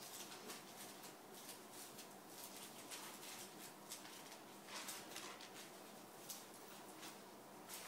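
Faint, irregular soft scratching and swishing of a calligraphy brush on paper, a few strokes a second, over quiet room noise.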